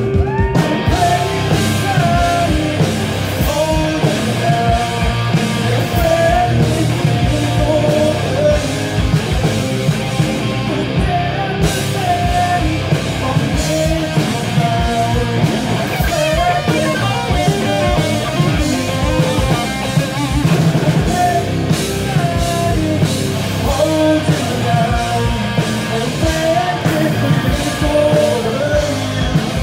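Live rock band playing loudly: two electric guitars, an electric bass guitar and a drum kit.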